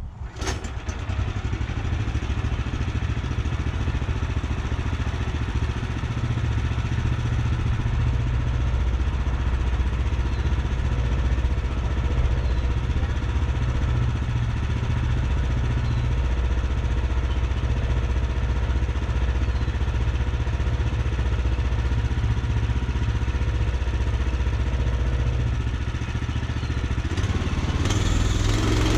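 Gasoline engine of a Woodland Mills HM126 portable band sawmill starting up, then running steadily. About a second before the end the sound turns brighter and harsher.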